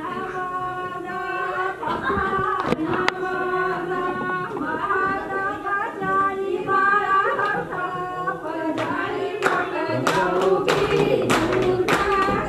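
A group of women singing together, with rhythmic hand clapping joining in from about two-thirds of the way through at roughly two claps a second.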